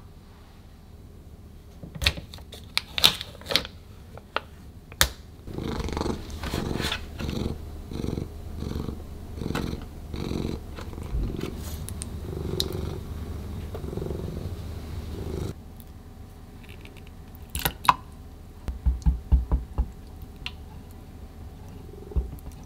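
A Ragdoll cat purring in a steady pulsing rhythm for about ten seconds, cutting off abruptly. Before and after it come light clinks and taps of a spoon and dishes during food preparation.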